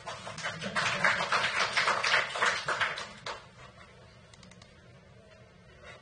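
A dense, rapid run of taps or clicks lasting about three seconds.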